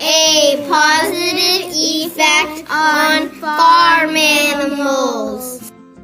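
A song playing: a high singing voice, wavering in pitch, over a steady instrumental accompaniment. The voice stops near the end, leaving the accompaniment playing quietly.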